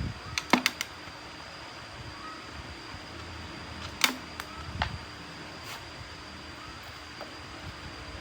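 Sharp clicks and light knocks of hard parts or tools being handled: a quick run of four or five clicks within the first second, then a louder click about four seconds in and a couple more soon after, over a steady faint hum.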